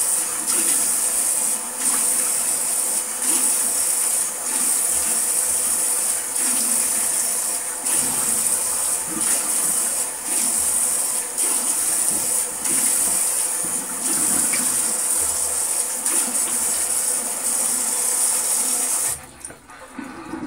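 Shower spraying hot water steadily, with small dips in the hiss, then turned off abruptly about a second before the end.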